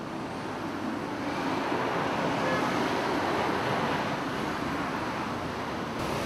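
Roadside traffic noise: a steady rush of engine and tyre sound that swells over the first few seconds as a vehicle goes by, then eases slightly.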